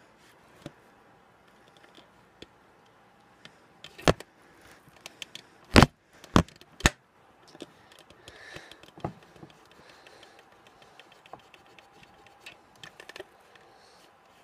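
Handling noise close to the microphone: a few sharp knocks and clicks, the loudest a little before the middle, among faint scattered ticks.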